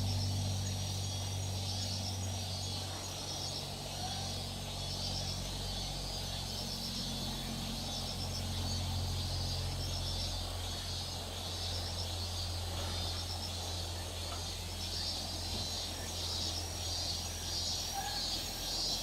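Outdoor ambience of insects chirping in repeated pulsing trills, over a steady low hum.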